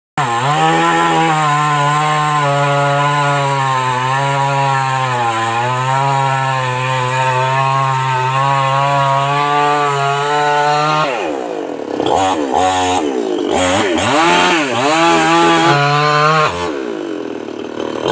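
Chainsaw cutting into a palmyra palm trunk, the engine held at a steady high pitch under load for about eleven seconds. It is then revved up and down several times before dropping lower near the end.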